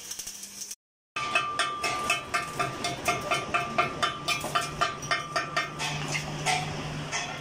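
Steel drive shaft tube being struck by a hand tool at the weld joint, about four sharp tapping strikes a second, each ringing with a metallic tone. The strikes start about a second in and thin out near the end, while a low steady hum comes in about halfway.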